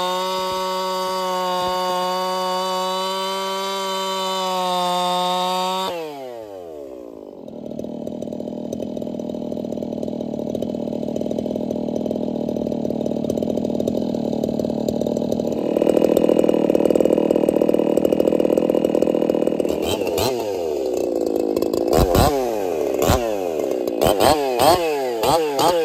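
Echo two-stroke chainsaw with .325 chain cutting through a log at full throttle with a steady high note. About six seconds in, the throttle is released and the engine winds down to a lower, rougher running. In the last few seconds it is revved up and down several times before bogging into a new cut.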